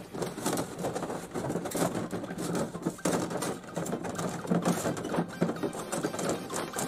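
Soft copper refrigeration tubing rattling and clinking as the coils are handled and shifted against each other and the table: irregular light clicks and knocks over a faint low hum.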